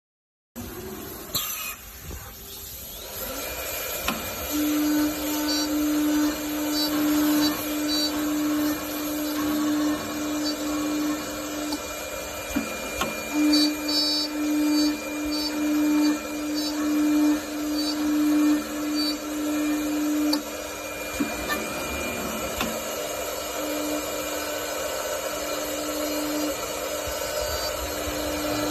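CNC wood-turning lathe running and cutting a wooden workpiece: a steady machine whine with a held tone that comes and goes, and loudness swelling and falling about once a second through the middle, steadier near the end.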